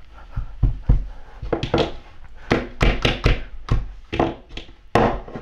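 About a dozen irregular thumps and taps as a plastic Pikachu toy figure and sock puppets knock against a tabletop while the figure is handled.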